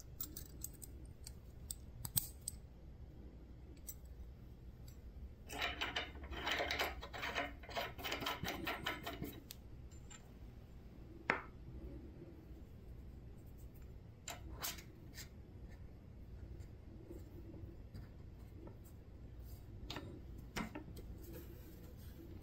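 Small steel parts of a lathe collet chuck being handled: a spring collet and its hex collet nut clicking and scraping together, with a dense run of quick metallic clicks a few seconds in, then a few single clicks as a steel rod is fitted into the collet.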